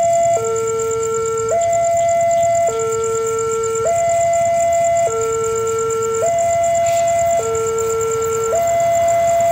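Railway level-crossing warning alarm sounding its two-tone signal, a lower and a higher tone alternating steadily about every second, a sign that a train is approaching the crossing.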